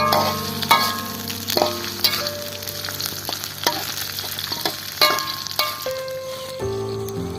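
Food sizzling as it fries in a pan while a utensil stirs it, with several sharp clacks of the utensil against the pan.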